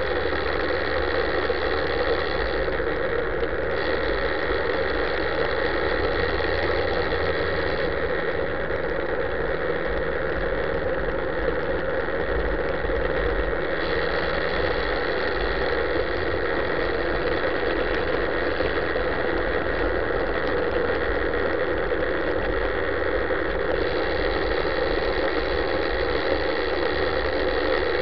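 Motorcycle engine running steadily at low revs while cruising, heard from a camera mounted on the bike's dashboard.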